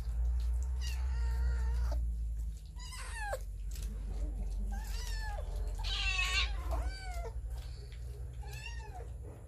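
Cats meowing repeatedly: about six separate calls, some held and some falling in pitch, the loudest about six seconds in.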